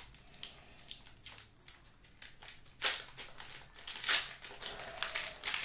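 Shiny plastic wrapper of a trading-card pack crinkling as fingers pinch and pull at it to tear it open, the seal resisting. Faint at first, with a few louder crinkles from about three seconds in.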